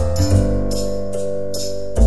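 Instrumental background music with a steady beat: light percussion strikes about two or three times a second over held keyboard chords and a bass line.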